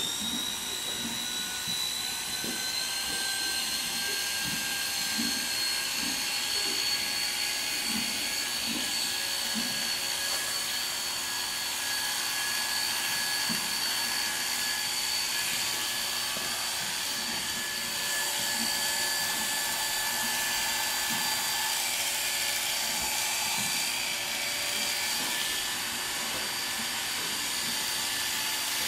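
Electric horse clippers running with a steady high whine while trimming the hair on a horse's head. The pitch climbs slightly over the first few seconds, then holds.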